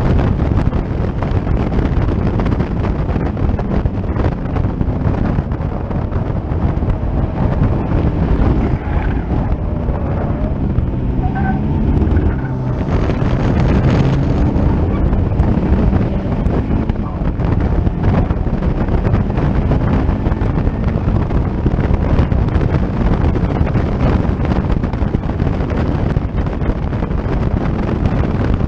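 Caterham Seven race car engine running hard at racing speed, heard from the open cockpit with heavy wind buffeting the microphone. Its pitch rises and falls through gear changes in the middle stretch as the car takes a corner.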